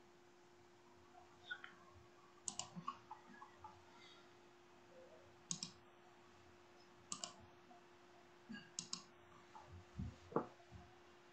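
Scattered sharp clicks, several in quick pairs or threes, in four or five clusters over faint room tone with a low steady hum; a duller knock comes near the end.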